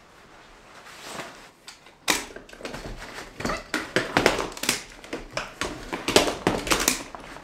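Rustling of a sleeping bag being rolled up, then from about two seconds in a folding camp cot being taken apart: a quick run of clicks and clacks from its poles, with the cot's fabric rustling.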